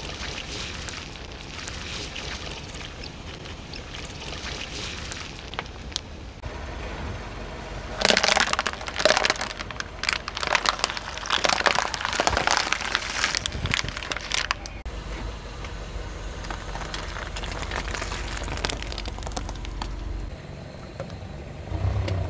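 Car tyre slowly rolling over and crushing plastic cups and bottles filled with liquid and water beads: plastic crackling and popping, with a dense run of loud cracks from about 8 to 15 seconds in.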